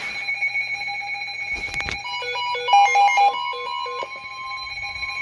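NOAA Weather Radio receivers alarming for an incoming flash flood warning. Steady electronic alert tones sound throughout, with a stepping beep tune of alternating high and low notes from about two to four seconds in. Near the end the long, steady weather-radio warning alarm tone begins.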